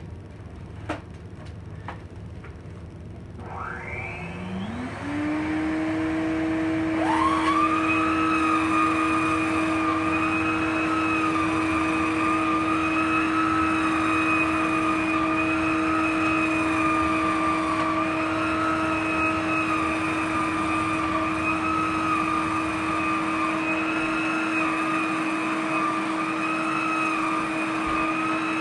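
Electrolux Renaissance canister vacuum cleaner starting: a few clicks, then the canister motor winds up with a rising whine about three to four seconds in. A second, higher whine rises about seven seconds in as the power head is switched on, and both then run steadily.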